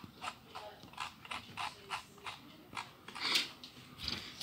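Keys clicking on an ASUS laptop keyboard as a search is typed, about three keystrokes a second, with one louder press about three seconds in.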